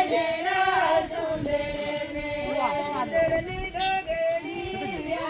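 A group of women singing a Rajasthani mayra folk song together, holding long notes and sliding between them.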